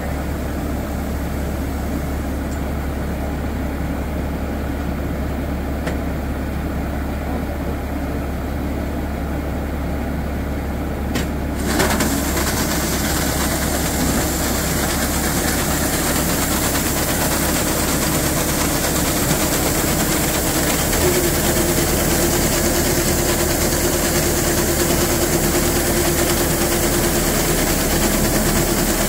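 Rice combine harvester's engine running steadily with a deep hum. About twelve seconds in the sound grows louder and a rushing hiss joins it as the unloading auger runs and husked rice pours from the spout into a pickup bed, with a steady whine added later.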